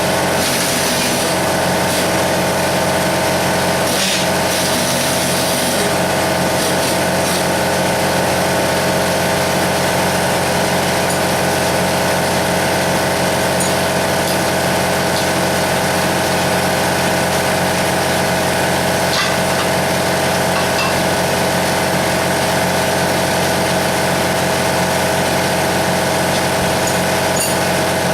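Shop air compressor running steadily: a constant motor hum that does not change, with a few faint clicks over it.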